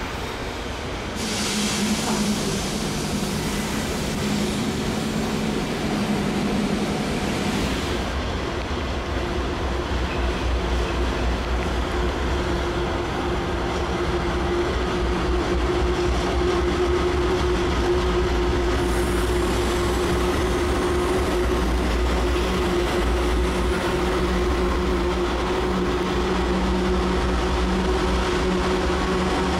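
Freight train rolling past: wagon wheels on the rails with a high hiss for the first several seconds. From about eight seconds in, the deep, steady drone of its diesel-electric locomotives takes over as they pass, with a held engine tone.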